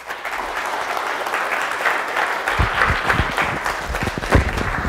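Audience applauding after a talk: loud, steady clapping from many people, with a few low thumps in the second half.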